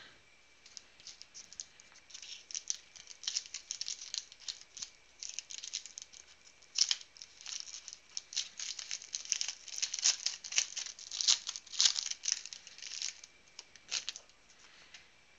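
Foil wrapper of a 2017 Panini Prizm football card pack being torn open and crinkled by hand: a dense run of sharp crackles, loudest around the middle, starting about a second in and stopping about a second before the end.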